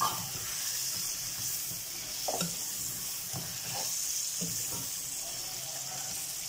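Chicken pieces sizzling in a masala gravy, with a steady frying hiss, while a steel spoon stirs them and scrapes and knocks against the pan every second or so.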